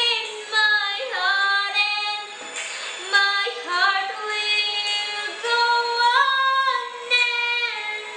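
A young girl singing a song solo, holding long notes and sliding between pitches.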